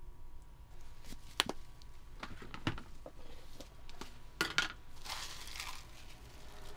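A few sharp knocks and clinks of kitchen utensils on the crepe counter, then a soft rustling patter about five seconds in as a gloved hand sprinkles topping over the filled crepe.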